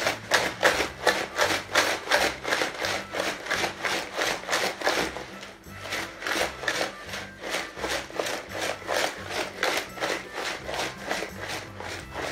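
Small ice balls and salt rattling and sloshing in a plastic jar shaken hard by hand, about three shakes a second, with a brief lull about six seconds in. The shaking chills a bag of ice-cream mix inside the jar until it freezes into shaken ice cream.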